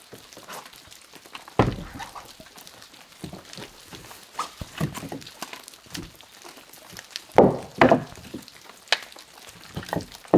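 Scattered knocks and thuds, as of objects being handled and set down, with a loud double knock a little past the middle.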